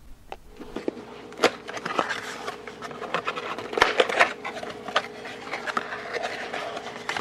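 A cardboard box of .22 cartridges being cut open and its flaps pulled back by hand: irregular scraping and rustling of cardboard with sharp clicks.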